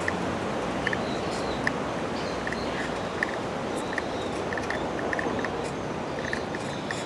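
Light footsteps on a paved footpath, a soft tick roughly every 0.8 s at a walking pace, over steady outdoor background noise with faint high bird calls.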